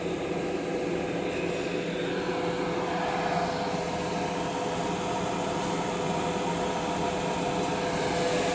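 Woodworking CNC router running steadily, its spindle and motors giving an even mechanical whir with a constant hum.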